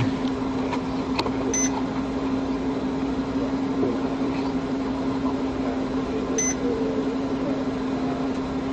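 Steady hum and hiss picked up by a police dashcam inside the patrol car. A short electronic beep sounds twice, about a second and a half in and again about five seconds later.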